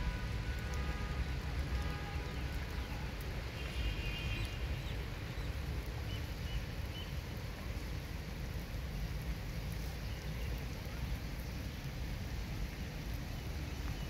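Steady hiss of light rain with a low rumble underneath, and a few short high chirps about four and seven seconds in.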